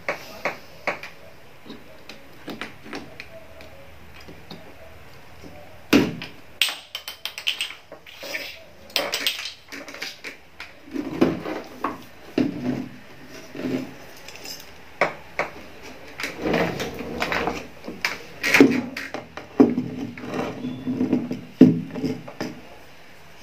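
Handling noise from a powered speaker's metal amplifier plate being pulled out of its cabinet and turned over: scattered clicks, knocks and rattles of the plate, its boards and wires against the wooden box, with a sharp knock about six seconds in and another near the end.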